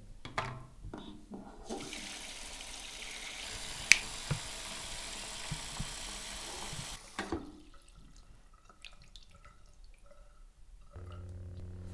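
Bathroom tap running into a ceramic sink for about five seconds, then shut off, with one sharp click partway through, the loudest sound. A few light knocks come at the start, and background music comes in near the end.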